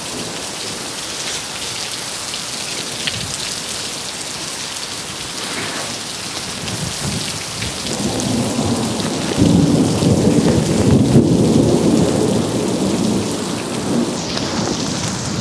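Heavy rain falling steadily in a severe thunderstorm. Thunder rumbles in about halfway through, grows loudest a couple of seconds later, and slowly fades toward the end.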